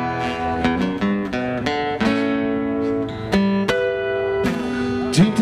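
Two acoustic guitars playing live through a stage PA, an instrumental passage of strummed chords that change about every second, without singing.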